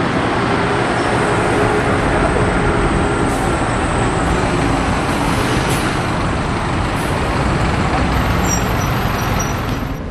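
Steady city street traffic as buses pass close by: a NAW BT-25 electric trolleybus and a diesel minibus, with a few short hisses.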